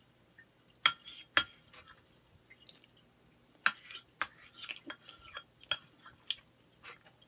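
Metal spoon clinking and scraping against a plate while eating: a string of sharp, ringing clinks, the loudest a little under a second in, just after one second, and near four seconds.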